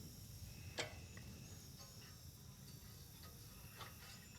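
Near silence with a few faint clicks of small parts being handled, the clearest just under a second in, as the new ignition coil's wire is worked into place on a small engine.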